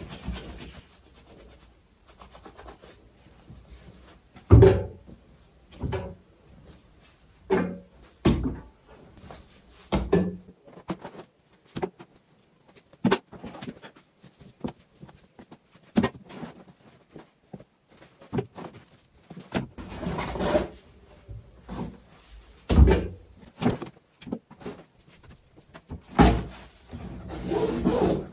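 Clothes being handled at a washing machine: fabric rustling and rubbing as garments are pulled from a hamper and shaken out, with irregular soft thumps and knocks. The strongest thump comes about four and a half seconds in.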